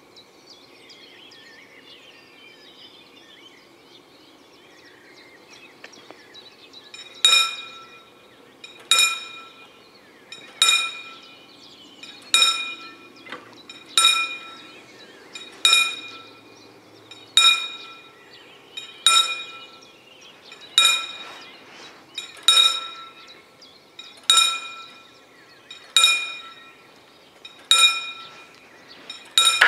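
Level-crossing warning bell striking slowly, about fourteen single ringing strokes starting about seven seconds in, one every 1.7 seconds. It is warning that the crossing is closing, with the barriers coming down.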